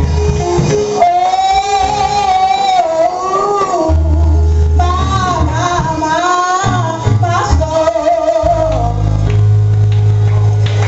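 A woman singing a gospel song into a microphone, her voice bending and sliding through long held phrases over low sustained bass notes from the accompaniment.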